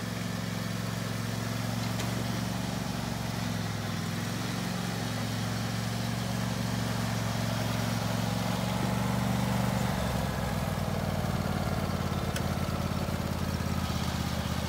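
Husqvarna YTH22V46 lawn tractor's 22 hp Briggs & Stratton V-twin engine running steadily as the tractor is driven; the engine note settles lower about ten seconds in.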